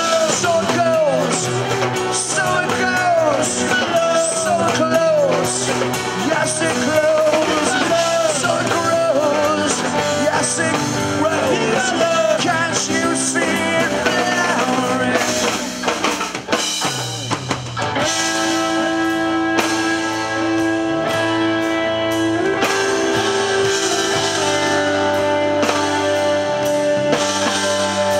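Live rock band playing an instrumental passage on electric guitars, bass and drums. For the first half the lead line bends and slides between notes. About two-thirds through, the band drops briefly, then moves into long held notes.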